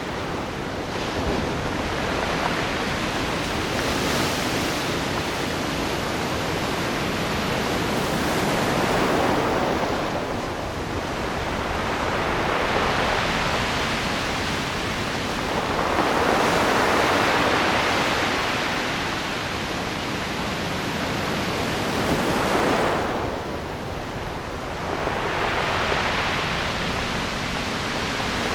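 Sea waves breaking on the shore in a continuous wash, each wave swelling up and falling back every four to five seconds.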